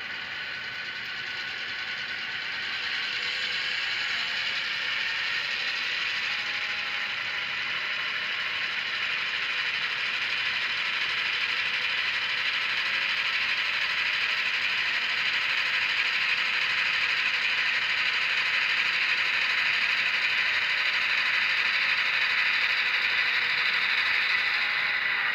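Model train locomotive running with its sound decoder playing engine sounds, a steady mechanical hiss with faint tones that grows louder over the first few seconds, then holds.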